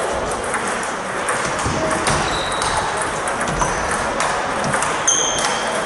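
Table tennis balls clicking off bats and tables in irregular quick strokes, some with a short high ring, from a rally at the near table and others around it.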